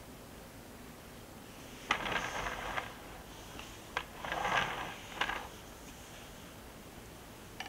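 A cake-decorating turntable being turned by hand, three times. Each turn is a click followed by a short rolling noise, and a single click comes near the end.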